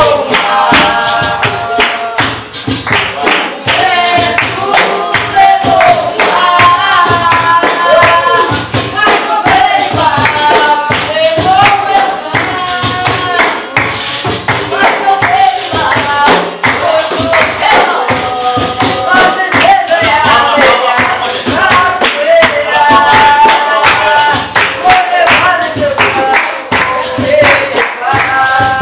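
Capoeira roda music: group singing over berimbaus, pandeiros and an atabaque drum, with hand clapping keeping a steady beat.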